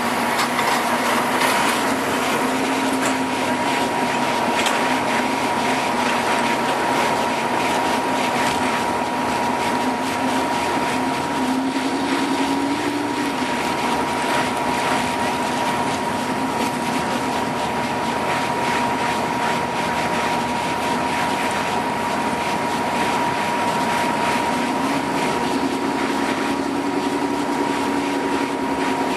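Pulling truck's engine running hard and continuously, with a steady high whine over it and a pitch that lifts slightly twice.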